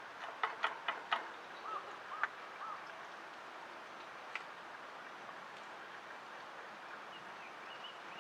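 A quick run of about half a dozen sharp clicks or taps, then a few short faint chirps and one more click, over a steady faint hiss.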